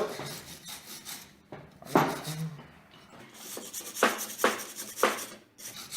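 Stiff brush scrubbed hard over a freshly made exothermic weld, scraping the hot slag off the joint in irregular strokes, with sharp knocks about two seconds in and a few more near the end.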